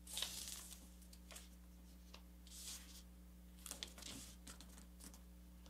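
Faint rustling of thin kami paper being creased and smoothed by hand on a cutting mat: three soft swishes, one right at the start, one around the middle and one about a second later, with a few tiny clicks over a low steady hum.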